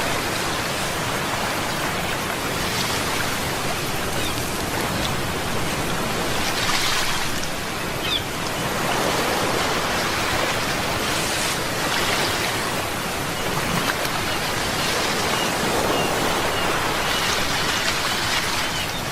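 Sea waves washing in, a continuous rushing noise that swells and eases every few seconds.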